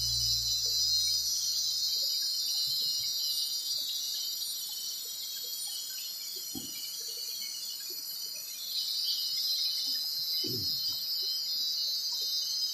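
Steady high-pitched chorus of forest insects, swelling a little about nine seconds in, with a couple of faint low knocks.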